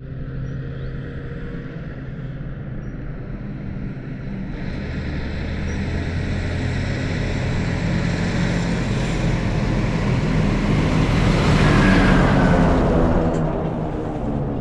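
Tractor's diesel engine approaching and passing at road speed: it grows steadily louder to a peak about twelve seconds in, then drops in pitch as it moves away.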